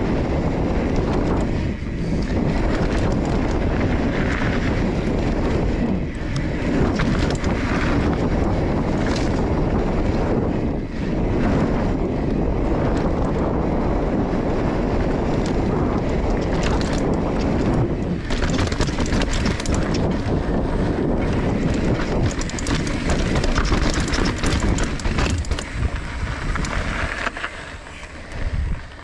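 Wind buffeting a bike-mounted action camera's microphone while a mountain bike's tyres run fast over a dirt trail, with many small clicks and knocks from the rough ground and the bike. The noise eases near the end as the bike slows.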